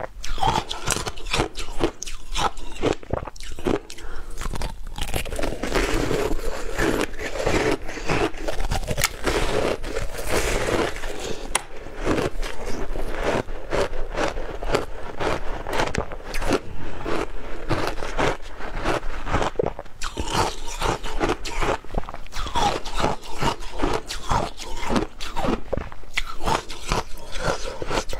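Close-miked biting, crunching and chewing of a chunk of frozen passion fruit ice, with many crunches one after another.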